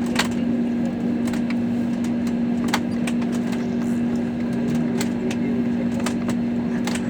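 Steady hum inside an airliner cabin from the engines and air system, with one strong low drone. Scattered small clicks sound through it.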